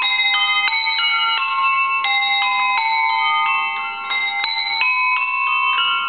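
A set of antique cup-shaped hand bells, their wooden clappers padded with chamois leather, rung one after another in simple changes. The strikes follow in a steady rhythm of about three a second, each bell ringing on under the next, with a short pause about two seconds in.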